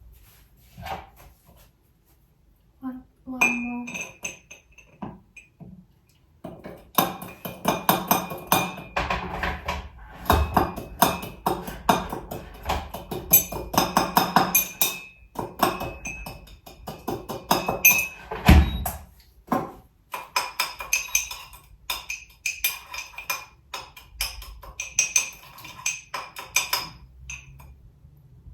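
A spoon knocking and scraping in a bowl, mixing cottage-cheese dough: a quick run of clinks and taps that goes on for most of the time after a quiet start, with a few sharper knocks.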